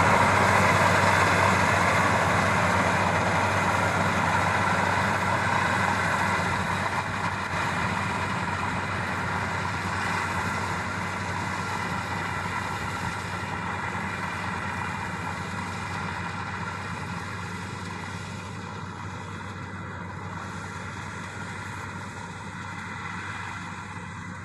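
Okey Maxxi Bimo 102 combine harvester running with a steady engine hum that slowly fades away.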